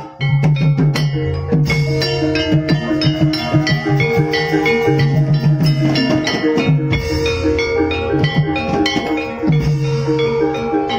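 Javanese gamelan music of the kind that accompanies ebeg: struck bronze metallophones and gongs over drums, playing a steady, busy rhythm. It starts abruptly at the beginning.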